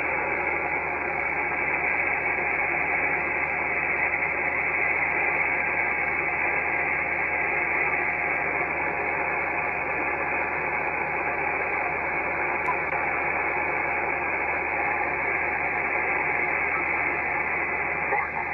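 Icom IC-7300 HF transceiver receiving on the 10-metre band in upper sideband: a steady static hiss of band noise with no clear station coming through, while the receiver is tuned across the band.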